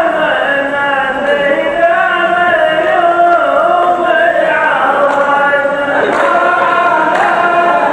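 A group of men chanting a line of poetry in unison to a slow, drawn-out melody, with long held notes. This is the chorus of a Saudi qalta, a sung poetry duel, repeating the poet's verse.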